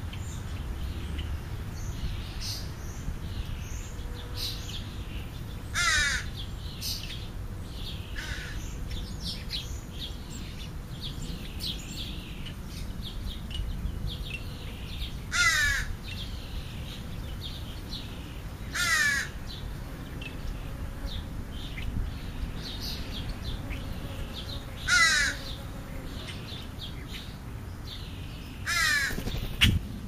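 Crow cawing: five loud single harsh caws, spread irregularly a few seconds apart, with fainter chirps of smaller birds between them over a low outdoor rumble.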